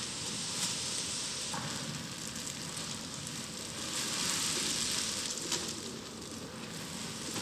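A load of rocks and dirt sliding and pouring out as it is dumped, a steady rattling hiss with scattered clicks and crackles.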